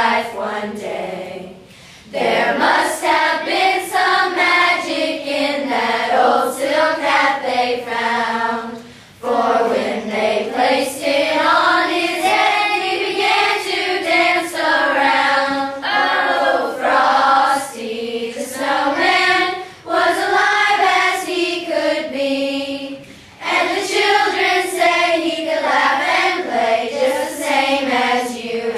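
A choir of children and women singing together, in phrases with a few short pauses for breath.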